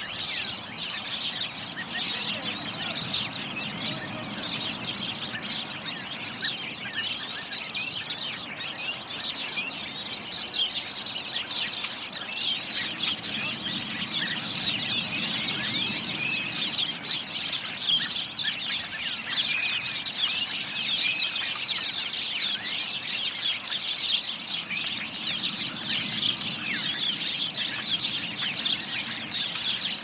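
A flock of small songbirds chirping and chattering continuously, many short calls overlapping into a dense chorus.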